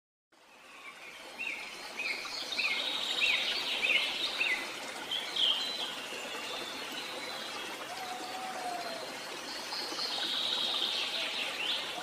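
Songbirds calling over the steady rush of a flowing stream, which fades in at the start. A run of about six short, evenly repeated chirps comes in the first few seconds, with further chirps and a trill later and a lower whistled note about two-thirds of the way through.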